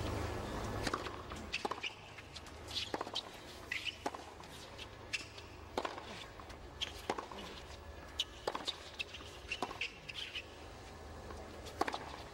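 Tennis rally on a hard court: sharp pops of racquet strikes and ball bounces about once a second, with short high sneaker squeaks in between, over a low crowd murmur.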